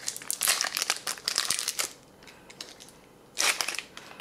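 Foil-lined wrapper of a fruit nougat bar crinkling as it is peeled open by hand: a dense run of crackling for about two seconds, then a shorter burst near the end.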